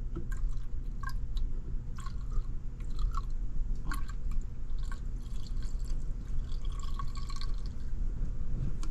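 Liquid drain cleaner poured into a condensate drain trap, dripping and splashing in short irregular spatters over a steady low hum.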